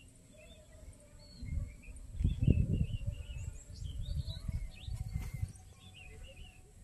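Small birds chirping in short calls throughout, with low rumbling noise on the microphone surging several times, loudest a little over two seconds in.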